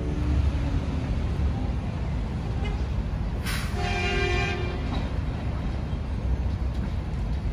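Steady low rumble of street traffic. About three and a half seconds in, a horn sounds once for about a second, several tones at once, beginning with a brief hiss.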